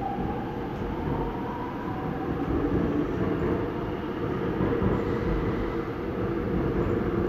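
Seoul Line 5 subway train heard from inside the car as it pulls out of the station and speeds up into the tunnel. A faint motor whine rises in pitch at the start, under steady running noise that grows a little louder.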